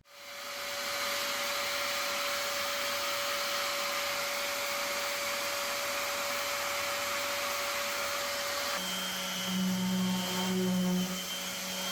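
Power sander spinning up and running steadily on the epoxy-coated plywood of a boat hull's interior, a motor whine over the rush of sanding. The sound changes a little after three-quarters of the way in, with low tones that come and go.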